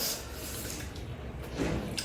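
Close-miked eating sounds of chicken biryani being eaten off a banana leaf: soft rubbing and handling noise with a brief click at the start and a small swell near the end.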